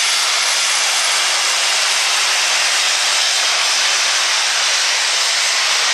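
Heavy super stock Case IH pulling tractor's turbocharged diesel at full throttle under the load of a pulling sled: a loud, steady rushing engine noise with a thin high whine above it.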